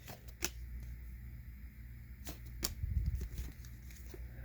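Faint handling of paper football trading cards: a few light clicks as cards are slid and flipped over, with a soft low rumble about three seconds in.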